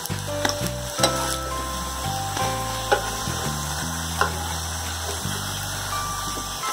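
Oil sizzling in a nonstick frying pan around shallow-fried besan (chickpea-flour) squares, as a metal spatula lifts them out with a few light scrapes and clicks against the pan.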